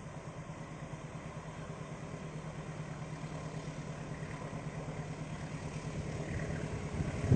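Diesel locomotive engine of an approaching passenger train, a steady low drone that grows slowly louder.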